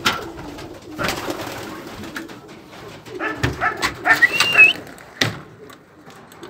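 Domestic racing pigeons cooing in and around the loft, with a few sharp knocks and a short high squeak about four and a half seconds in.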